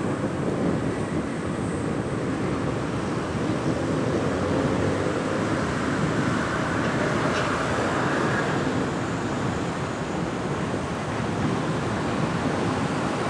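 Hokuso Railway 7500 series electric train running along the track toward the listener, a steady, continuous running noise.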